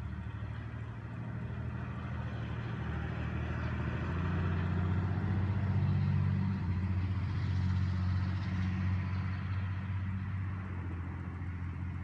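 A road vehicle passing: a low engine hum with tyre noise that grows louder to a peak about halfway through, then fades.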